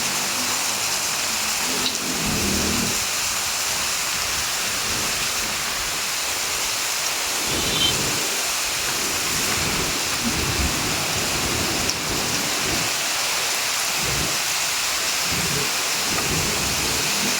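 Heavy rain falling in a steady, even hiss, with faint low rumbles coming and going underneath.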